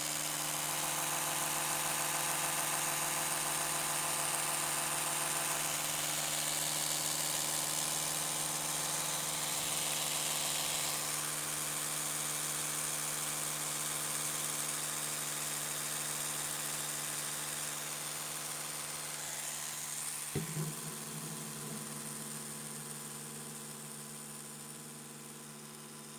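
Oral-B Professional 500 electric toothbrush running, a steady buzzing hum. About twenty seconds in there is a knock and the pitch shifts slightly, then the hum slowly grows quieter.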